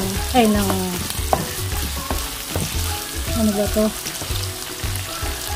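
Chopped onion, garlic, ginger and pork sizzling as they sauté in hot oil in a nonstick pan. A wooden spatula stirs them, with scattered clicks and scrapes against the pan.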